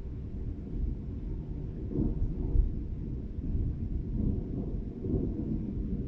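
Thunder rumbling low and long, swelling several times as it rolls.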